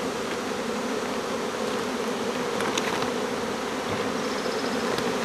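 A swarm of honeybees buzzing as a steady, dense roar, freshly poured into a hive box and stirred up from being vacuumed off the tree.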